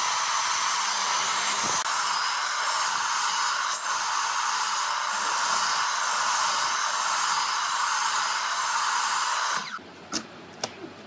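A steady, loud rush of hissing air from a running machine, which cuts off abruptly near the end, followed by a few sharp light knocks.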